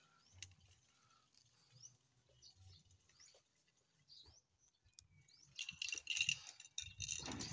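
Faint bird chirps, then from about five and a half seconds in a louder rattling and scraping as a rubber bucket of broken rock is hauled up on a rope and grabbed by hand.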